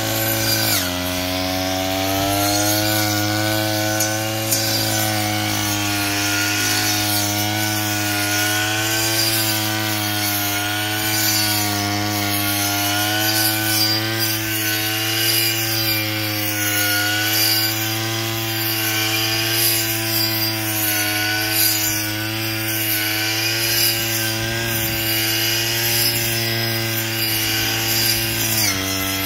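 Brush cutter with a 12-inch circular saw-type blade running at high speed, its engine note wavering as the blade cuts grass. The pitch drops sharply about half a second in and again near the end.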